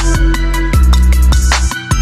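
Background music with electronic beats: heavy bass and a steady drum pattern.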